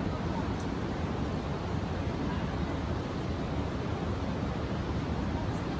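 Steady rushing noise, heaviest and fluttering at the low end: wind buffeting the phone's microphone, with a couple of faint small clicks.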